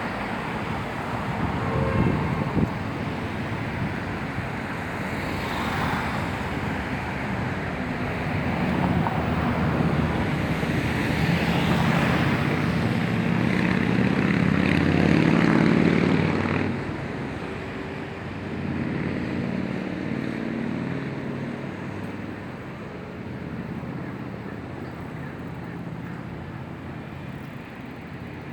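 Engine noise with a low drone that swells to its loudest about fifteen seconds in, then drops off sharply and carries on more quietly.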